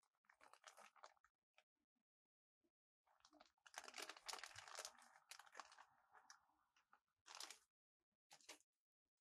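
Faint crinkling and scraping handling noises in several bursts; the longest runs from about three to seven seconds in, and two short ones come near the end.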